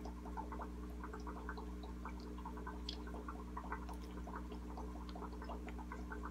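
Steady low hum of a shrimp aquarium's pump, with a constant irregular patter of small bubbling clicks, and soft chewing of a mouthful of cake.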